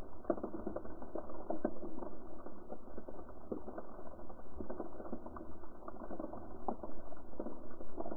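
Underwater ambience picked up through a GoPro's waterproof housing: a muffled, continuous crackle of irregular clicks and knocks over a low rumble.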